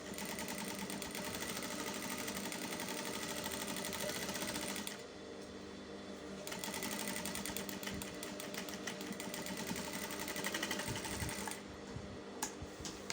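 Sewing machine running at a fast, even stitch, sewing a zipper onto trouser fabric. It eases off briefly about five seconds in, runs again, and stops near the end.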